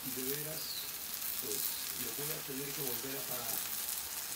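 Pupusas frying on a hot flat griddle: a steady sizzling hiss.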